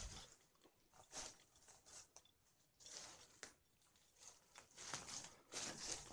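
Footsteps crunching on loose stone rubble: a few slow, irregular steps.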